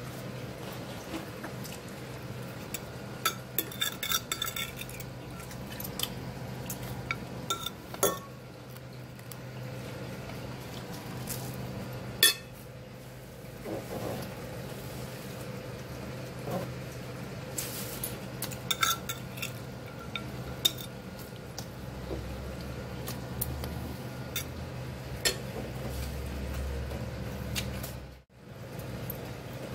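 A metal fork clinking and scraping against a ceramic plate of dressed salad, in scattered strikes with a sharper clink about twelve seconds in, over a steady low hum.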